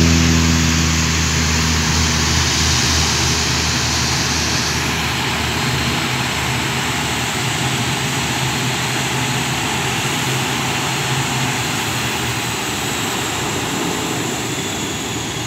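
Cessna 172 single-engine propeller plane at takeoff power, its engine and propeller drone receding as it climbs away. The low engine hum is strong at first and fades out around six seconds in, leaving a wide hiss that slowly gets quieter.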